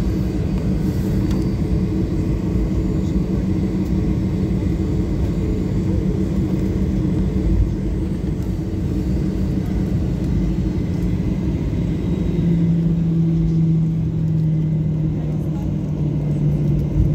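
Airliner cabin noise while taxiing: the steady rumble and hum of the jet's engines and airflow. The hum steps down slightly in pitch about twelve seconds in.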